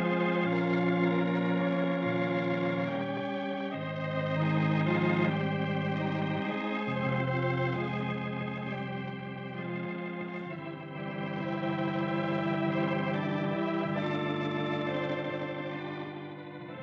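Organ music playing sustained chords that change every second or two, the program's closing music after the sign-off; it gets quieter near the end.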